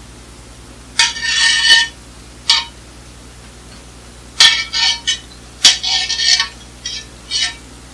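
A knife clinking and scraping against a frying pan and cutting board as sliced chicken strips are pushed into the hot oiled pan. The sound comes in about five short bursts, with sharp clinks at about one second in and twice again midway.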